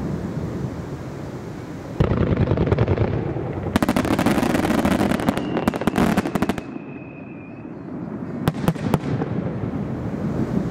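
Aerial fireworks display: a deep boom about two seconds in, then a dense run of sharp crackling reports for about three seconds, and a few more separate cracks near the end, all over a continuous low rumble.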